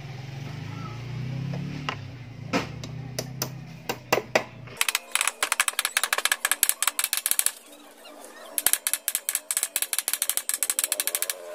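Steel steering-head bearing cup being tapped down into a Yamaha Mio scooter's head tube: a few single knocks, then two runs of rapid light metal-on-metal taps, about nine a second, in the second half. A low hum underneath stops about five seconds in.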